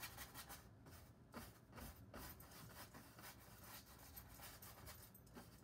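Faint scratchy rubbing of a wide bristle brush working oil paint onto a stretched canvas, in repeated strokes.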